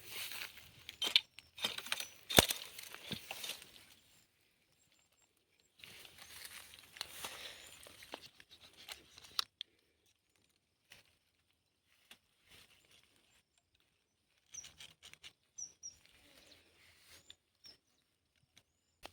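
Rustling and crackling of plant leaves and stems being handled and cut, with a sharp snap about two and a half seconds in; after a gap, more rustling, then scattered light clicks and a few faint bird chirps near the end.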